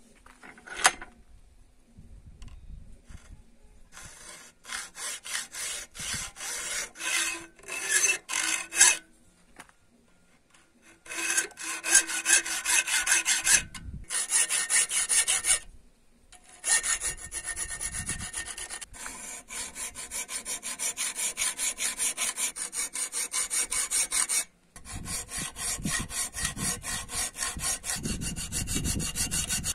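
Hand file scraping in quick, repeated strokes across a knife blank of 5160 leaf-spring steel clamped in a vise, with a few short pauses between runs of strokes. A sharp metallic clink about a second in.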